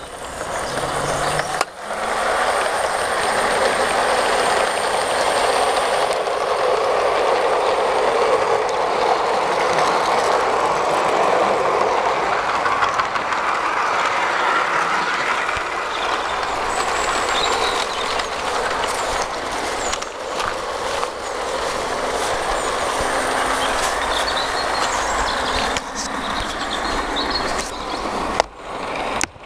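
Tri-ang O gauge model Hymek diesel locomotive, fitted with a new 6-volt motor, running along the track pulling eight coaches: a steady, loud running noise of motor and wheels on the rails, with a few brief dips.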